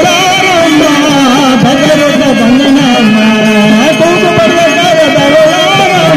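Loud live stage music amplified through a PA: a wavering melody, sung or played, over steady held notes.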